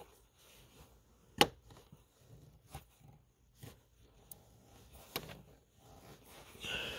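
A few sharp clicks and ticks from a flexible-shaft nut driver with an 8 mm socket working a small screw on the blower motor resistor's plastic housing. The loudest click comes about a second and a half in.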